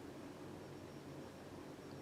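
Casablanca 20th Century ceiling fan with its K63 motor running steadily, heard as a faint low hum under a soft even hiss.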